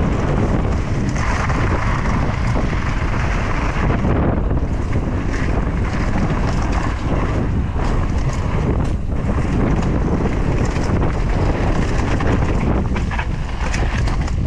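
Wind buffeting the microphone of a camera riding along on a mountain bike moving fast down a dirt trail, a steady loud rush with scattered clicks.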